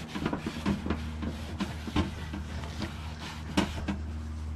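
A rag rubbing and wiping over a riding mower's plastic hood, with irregular soft scuffs and handling clicks, over a steady low hum.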